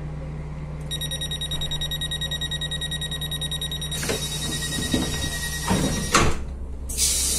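Train door-closing warning tone sounding for about three seconds, then the powered passenger door sliding shut with several knocks and a final thunk about six seconds in, over the steady hum of the stationary train. A hiss starts near the end.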